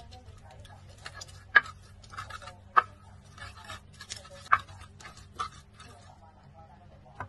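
Hand pestle crushing and grinding red chillies, garlic and salt on a flat cobek mortar: rough scraping and crackling, broken by sharp knocks of the pestle on the mortar, the loudest about a second and a half in, near three seconds and about four and a half seconds in.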